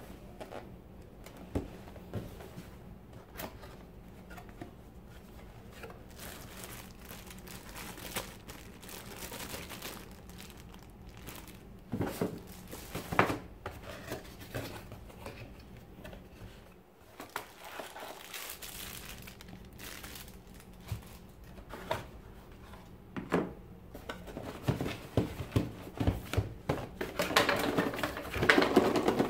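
A cardboard camera box and its packaging being handled: the lid lifted off and folded flaps opened, with rustling, crinkling and occasional light knocks. The rustling grows denser and louder near the end.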